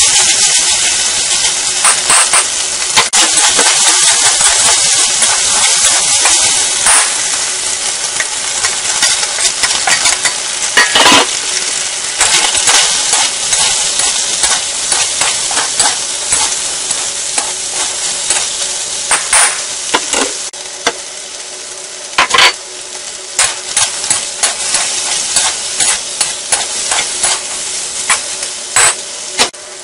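Chicken and sliced vegetables sizzling in a hot steel wok while a metal spatula scrapes and knocks against the pan. A steady hiss is broken by frequent sharp clacks.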